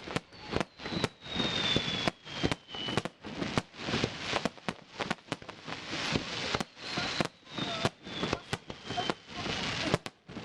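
Fireworks bursting in quick succession with a dense crackle, and two long falling whistles over them.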